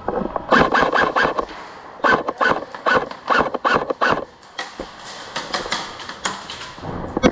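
Airsoft rifles firing in quick strings of shots, about five sharp cracks a second, in several bursts with short gaps between them.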